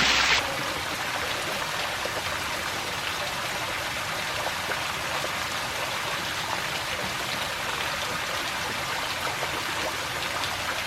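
Kallektuffquell waterfall: water falling and trickling over a tufa rock face as a steady rush with fine drips.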